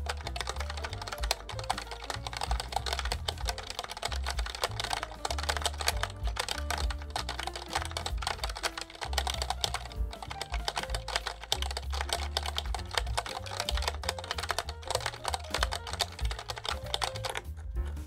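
Rapid, continuous typing on the GrabShell mechanical keyboard: a dense run of key clicks from its switches and ABS double-shot keycaps, thinning out near the end, with background music underneath.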